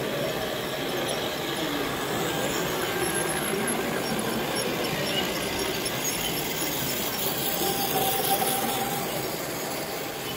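Toy trains running on plastic-track layouts, a steady mix of small electric motors and wheels on track.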